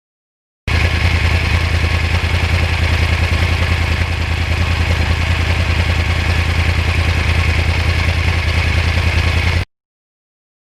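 2009 Yamaha R1's crossplane inline-four engine idling steadily with a fast regular throb. It cuts in suddenly about a second in and cuts off just as suddenly near the end.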